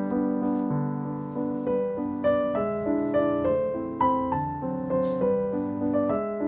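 Background piano music: gentle notes struck about once or twice a second, each ringing and fading.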